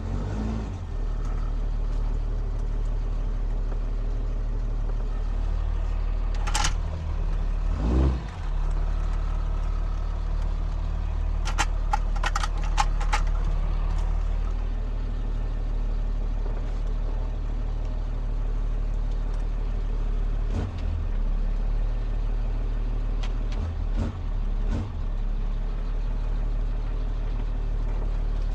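An engine idling steadily, with sharp metal clanks and clicks over it: a few single ones, and a quick cluster of four or five about halfway through.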